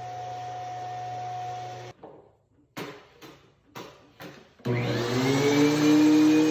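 A workshop power tool's electric motor running steadily and switched off about two seconds in, then a few short knocks. Near the end a motor starts, its whine rising in pitch as it spins up to a steady run.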